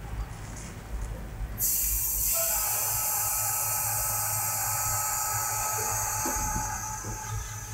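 Compressed air from an air-compressor hose blasting through a sonic logging (CSL) tube to push the water out. A sudden loud hiss starts about one and a half seconds in and is soon joined by several steady whistling tones, easing near the end, over a low steady hum.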